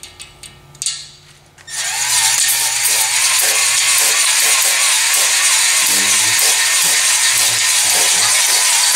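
Cordless drill spinning a stone cylinder hone up and down in a cast-iron 5.7 Hemi cylinder bore, with brake cleaner sprayed in from an aerosol can. It starts about two seconds in: a steady, loud grinding hiss with a motor whine that wavers in pitch. The hone is cutting a cross-hatch into the bore so that the new piston rings seal.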